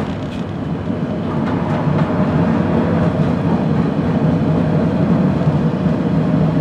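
Steady rumble and running hum of a vintage streetcar under way, heard from inside the car. It grows slightly louder about a second and a half in.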